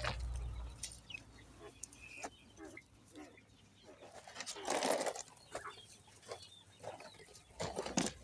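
Poultry calling softly, with scattered knocks and rustles from handling, the loudest rustle about five seconds in.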